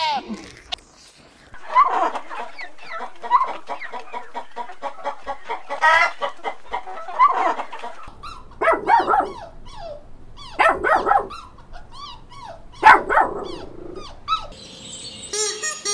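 Sheep bleating in a series of short calls. About eight seconds in, chickens take over with three loud bursts of calling from a hen and a rooster. Faint high bird chirping comes in near the end.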